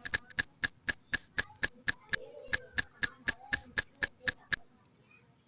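Rapid, evenly spaced ticking clicks, about four a second, each with the same bright ring, stopping about four and a half seconds in.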